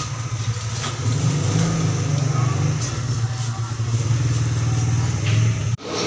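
An engine or motor running steadily with a low, throbbing hum, broken off by a sudden cut near the end.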